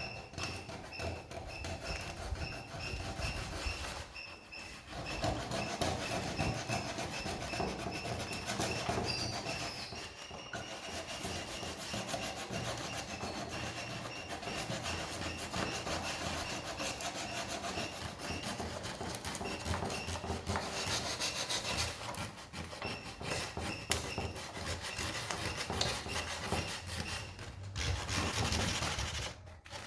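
Sandpaper rubbing back and forth over a wooden window frame in quick, continuous strokes, with a couple of short breaks.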